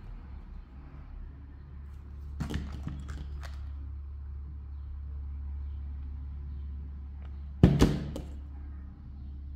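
A hot glue gun handled on a tabletop: a few clicks and knocks as it is picked up, then one loud knock with a short rattle as it is set back down, about three-quarters of the way through. A steady low hum runs underneath.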